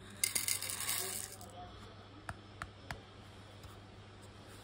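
Small gold-plated connector pins poured into a glass dish: a brief jingling rattle of metal pieces on glass lasting about a second, followed by three light clicks spaced about a third of a second apart.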